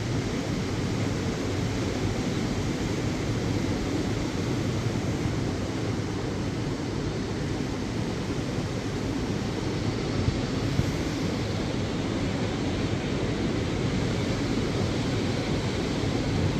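Steady noise of wind and ocean surf during a storm, even and unbroken, with its weight in the low end.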